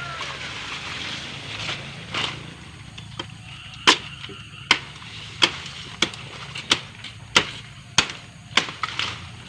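Wood being chopped with a blade: a couple of light knocks, then from about four seconds in a run of sharp strikes, roughly one every two-thirds of a second, cutting into the trunk of a fallen tree.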